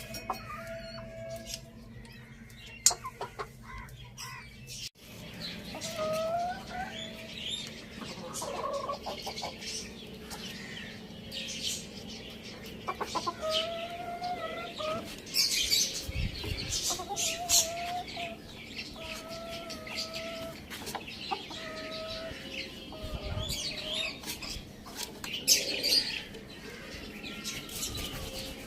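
Chickens clucking in short repeated calls while feeding, with scattered sharp ticks mixed in.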